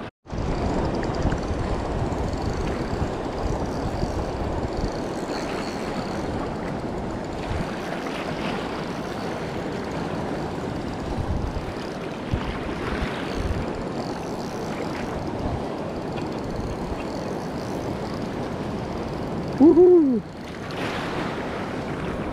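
Wind buffeting the microphone over shallow sea water sloshing around a wading angler, a steady rushing noise. Near the end, a short, loud pitched sound bends up and down.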